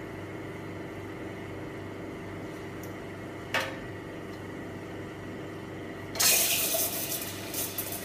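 Conti espresso machine humming steadily as its pump pulls shots, with a short click about three and a half seconds in. About six seconds in the steam wand opens with a loud, fluctuating hiss as it goes into the stainless milk pitcher to steam milk.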